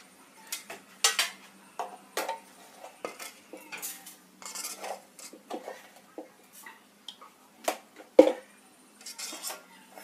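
Kitchen utensils and dishes clinking and knocking in an irregular clatter of short hits, the loudest a little after eight seconds in.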